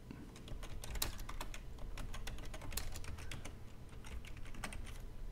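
Computer keyboard typing: an uneven run of quick key clicks as a username and password are typed in.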